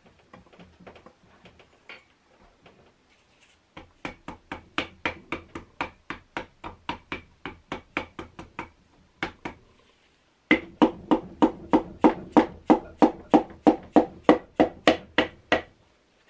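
A forged piston being tapped down through a ring compressor into the cylinder bore of a Subaru EJ25 block: quick, even wooden-sounding taps, about four a second. They come in two runs with a short pause between them, after a few seconds of faint handling clicks.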